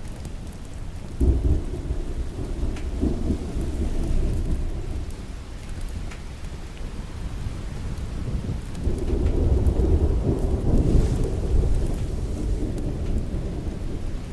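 Thunder rumbling over steady rain. A low roll starts suddenly about a second in, and a second, longer roll builds from about nine seconds in.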